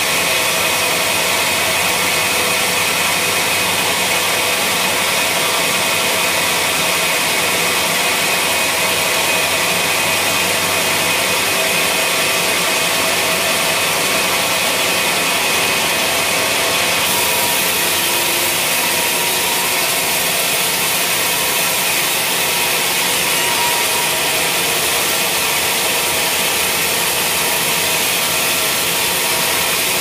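Band sawmill blade ripping lengthwise through a wadang (Pterospermum javanicum) cant: a loud, steady sawing noise with a high whine running through it.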